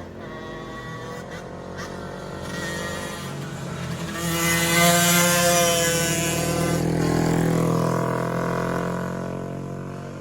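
A motorcycle engine running, swelling to its loudest about halfway through and then fading.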